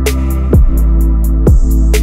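Electronic background music with a steady beat: deep kick drums with a falling pitch, quick hi-hat ticks and sustained bass and synth notes.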